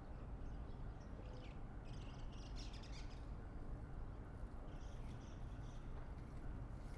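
Small birds chirping in short bursts, about a second in and again near the end, over a steady low background rumble.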